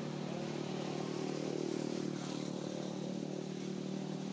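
A motor vehicle's engine running steadily at an even pitch.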